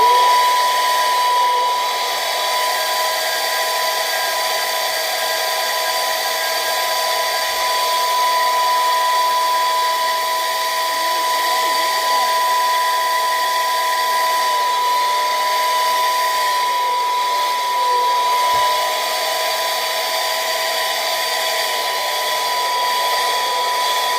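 Steam whistle sounding loud and unbroken: a steady high tone over a rushing hiss, with a second, lower tone that dips briefly several times.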